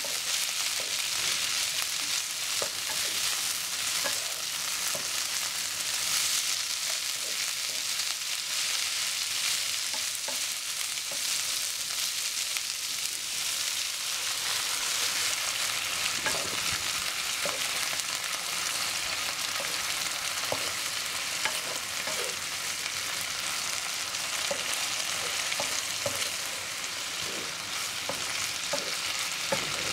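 Long beans stir-frying in a hot pan: a steady sizzle, with a wooden spatula scraping and knocking against the pan as the beans are turned. About halfway, plain water is poured into the pan.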